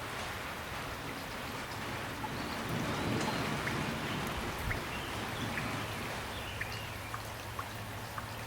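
Steady rain falling, with separate drops ticking through the second half and a low swell about three seconds in.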